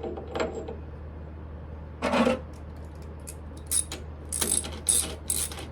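Smithy lathe running with a steady low hum while a cutting tool works a brass peg, giving intermittent sharp metallic clinks and scrapes, a few of them close together in the second half.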